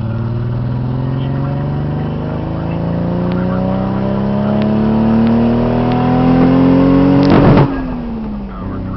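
Nissan RB25DET turbocharged straight-six accelerating hard through a gear, its note climbing steadily for about seven seconds, then breaking up in a short harsh stutter near the top before the revs fall away. The break-up is a high-rpm misfire caused by failing coil packs.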